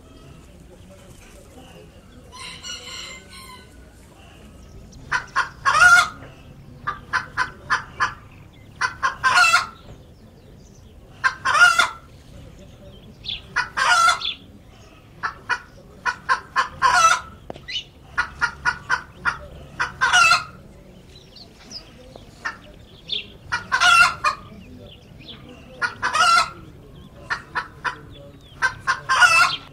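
Chicken cackling over and over from about five seconds in: each phrase is a quick run of short clucks ending in one longer, louder note, repeated every two to three seconds. A brief scratchy rustle comes before it.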